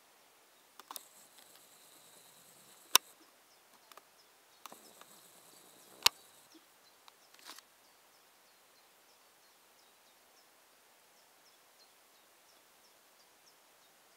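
Quiet outdoor garden ambience. Several sharp clicks and knocks come in the first half, the two loudest about three and six seconds in. After that, faint, quick, high bird chirps repeat.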